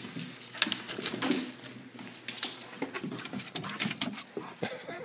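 A house door being unlatched and swung open, then irregular clicking and knocking of a dog's claws and feet on a wooden deck as it runs out, with a light jingle of collar tags.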